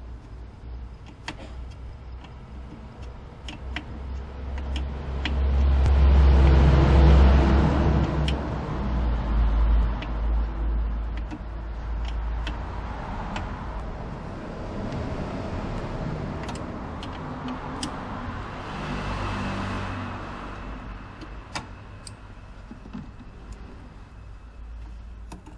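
A motor vehicle passing by: a low rumble that swells and fades about five to twelve seconds in, with a second, lighter swell later on. Sharp metal clicks of a wrench on the master cylinder's brake-line fittings are scattered throughout.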